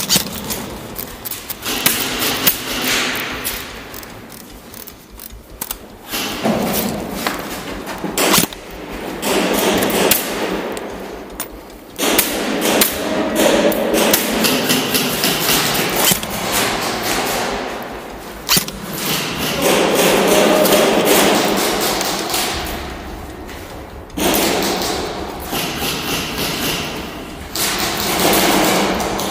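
Airsoft guns firing and BBs striking, heard as sharp clicks and knocks at irregular intervals, some in quick strings, over a noisy background.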